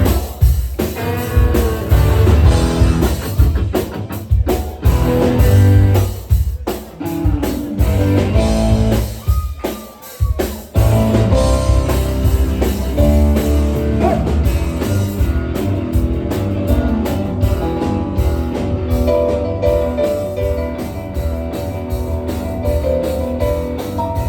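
Rock band playing an instrumental intro on drum kit and guitar, with a short break about ten seconds in before the band comes back in.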